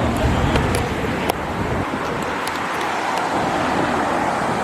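Steady outdoor background din, with wind buffeting the microphone in a low rumble that drops away about two seconds in, and a few faint ticks near the start.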